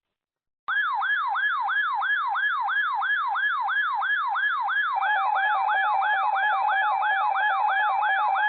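Electronic siren-like alert tone for a NOAA Weather Radio weekly test of the SAME and tone alert systems, starting abruptly under a second in. It sweeps up and down about three times a second, and a second steady tone joins it about halfway through.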